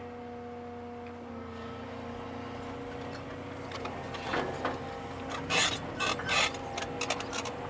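Excavator engine and hydraulics running steadily, then from about four seconds in a run of sharp clanks and scrapes as the machine works.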